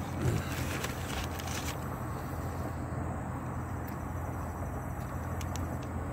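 Steady low background hum, with brief crinkles of a paper sandwich wrapper and chewing close to the microphone in the first two seconds, and a couple of faint clicks near the end.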